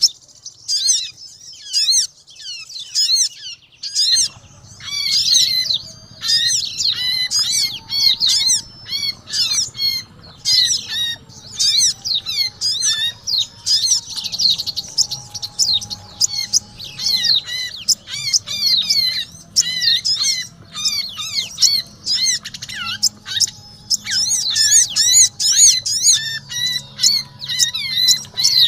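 Sogon and white-eye (pleci) birds calling busily over each other, with a dense stream of rapid, high chirps and squawks. A low steady hum joins about four seconds in.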